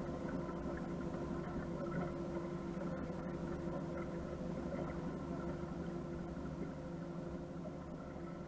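Motorboat engine running steadily at low cruising speed, a constant drone with a steady hum over low rumble, easing off slightly near the end.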